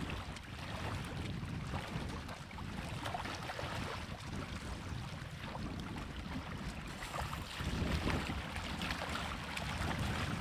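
Wind buffeting the microphone, with small waves lapping against shore rocks.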